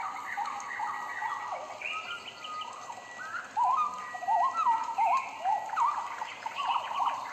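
Birds singing and chirping: a dense run of short, quickly rising and falling calls from several birds, louder from about halfway through.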